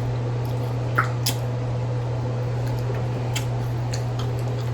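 Faint wet squishes and small sharp clicks of seafood being eaten and its shells handled, a few times, over a steady low hum.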